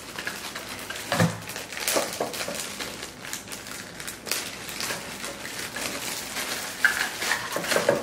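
Plastic parts bags crinkling and rustling as they are handled, with irregular light clicks and clatter of small parts.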